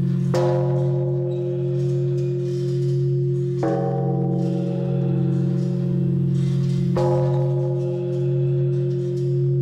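Large cast temple bell struck three times with a hanging wooden log, about three seconds apart. Each strike rings on over the bell's steady low hum.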